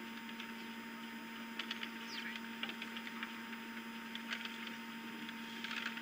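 Steady electrical hum from the nest-cam microphone with scattered faint ticks and a thin falling whistle about two seconds in. Right at the end comes a short pulsed, high chirping call from the osprey.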